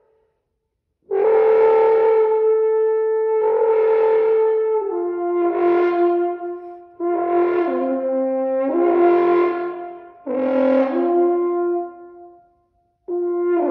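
French horn playing a phrase of sustained notes that steps between a few pitches, with short breaks between them, as flutter tongue is switched on and off against the normal tone. The horn comes in about a second in and pauses briefly near the end before the next note starts.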